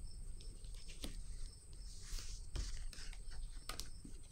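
Faint handling of tarot cards on a table: a few soft clicks and a brief rustle about two seconds in, over a low steady room hum.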